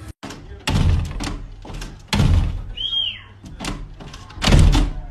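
A glass sliding door banging and rattling in its frame as a dog paws it open and a person inside pushes it back shut: three heavy thuds, each with a short rattle after, and lighter clicks between them.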